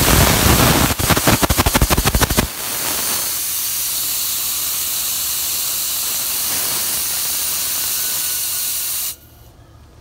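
Propane venting from a 40 lb cylinder that is nearly full during filling, with a loud hiss. A rapid crackle lasts for about the first two and a half seconds, then the hiss runs steady and cuts off suddenly near the end.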